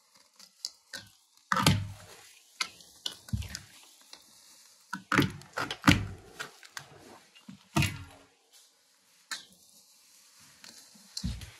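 Packing material being pulled and torn off a new mountain bike's frame and rear wheel: irregular rustling and crinkling with sharp clicks, and a few thumps and knocks as the bike is handled.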